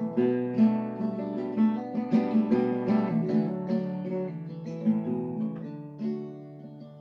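Acoustic guitar playing an instrumental passage: picked melody notes, several a second, over lower ringing notes. The playing grows quieter over the last couple of seconds.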